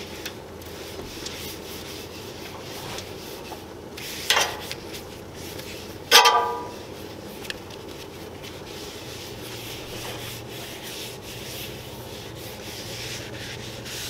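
Paper towel held in tongs rubbed back and forth over the hot steel top of a Blackstone griddle, spreading canola oil to season it: a steady scrubbing. A short metal knock comes about four seconds in, and a louder metal clank that rings briefly about six seconds in.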